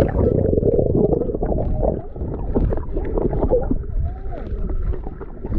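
Muffled underwater sound picked up by a camera held just below the surface in shallow water: dull sloshing and low rumbling of moving water and wading legs, with the high sounds cut away.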